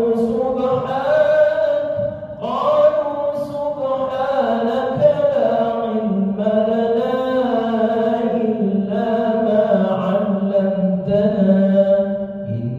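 A man's voice chanting Quranic recitation in long, drawn-out melodic phrases with short breaths between them.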